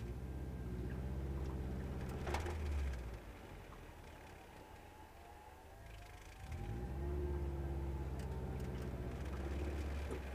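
Subaru Impreza WRX's turbocharged flat-four, with an Invidia cat-back exhaust, heard from inside the cabin pulling away at low speed: it runs under throttle for about three seconds, eases off, then pulls again from about six and a half seconds in. A sharp click about two seconds in.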